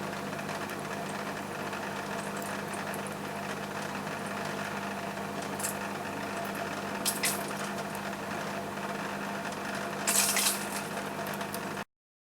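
Steady background hum and hiss of room tone, with a few brief scratchy handling sounds, the loudest about ten seconds in; the sound cuts off abruptly to silence near the end.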